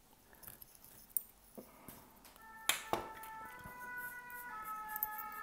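Sharp snaps of a spring-loaded glass-breaker punch cracking an iPhone 13's back glass: faint ticks at first, then two loud snaps close together just after halfway. From about halfway, background music with sustained notes comes in.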